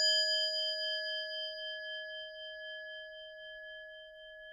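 A single struck bell ringing out and slowly fading away, several clear tones sounding together.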